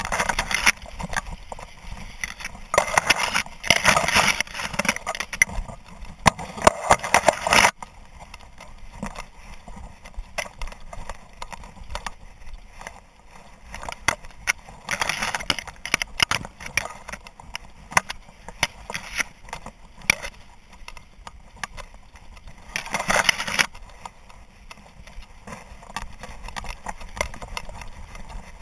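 Dry grass brushing and scraping against a camera mounted on a running dog's back, heard close up: loud bursts of rustling, the longest in the first several seconds and shorter ones about halfway through and near the end, with small clicks and knocks in between.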